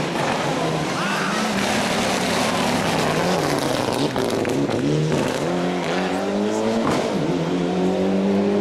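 Mitsubishi Lancer Evolution rally car's turbocharged four-cylinder engine revving hard. Its pitch climbs and falls repeatedly, rising steeply about halfway through and dropping sharply for a gear change or throttle lift near the end.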